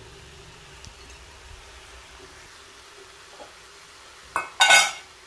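Faint low hum with a couple of small ticks, then near the end a click and a short, bright clatter of kitchenware knocking together, with a brief ring.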